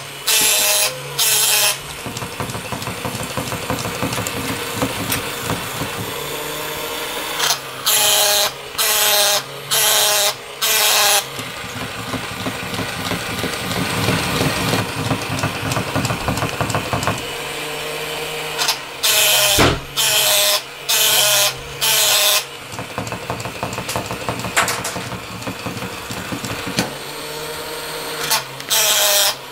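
Battery-powered plush toy duck: runs of loud, repeated electronic quacks about one a second alternate with stretches of its small motor whirring as it moves.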